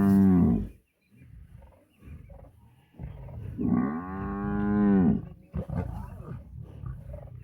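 A buffalo bellowing in distress while lions bring it down: a long moo-like bellow ending about half a second in, then a second drawn-out bellow that rises and falls in pitch, with lower rumbling between.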